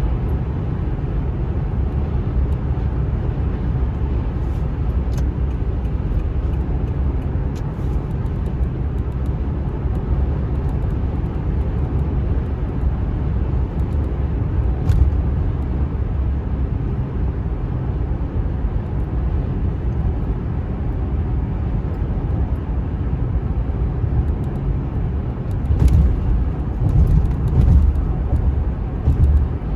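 Steady low road and engine rumble inside a moving car's cabin at highway speed, with a few faint clicks. Near the end the rumble swells in uneven louder surges.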